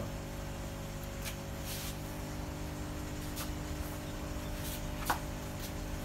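Room tone: a steady low mechanical hum with faint steady tones, broken by a few short soft hisses and a small click about five seconds in.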